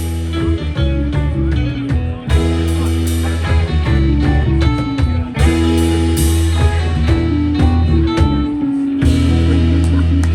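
Live rock band playing an instrumental passage: electric guitar lines over a heavy bass and drums, with cymbal crashes about two, five and nine seconds in.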